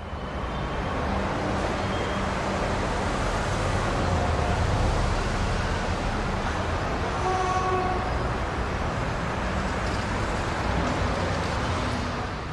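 Steady rumbling vehicle noise that fades in at the start and fades out at the end, with a brief pitched tone a little past halfway.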